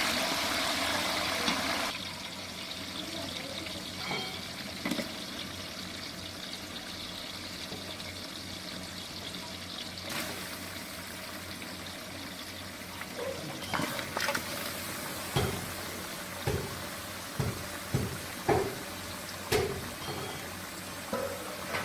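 Water running or pouring, which stops about two seconds in, then a quieter background; in the second half a series of short sharp knocks, roughly one a second.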